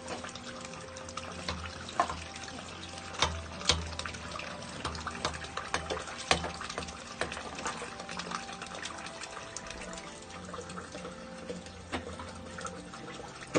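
Dirty water sloshing and trickling in a drain inspection chamber blocked with wet wipes and cooking fat as the wads are dragged out with a drain rod, with a few sharp knocks and scrapes of the rod.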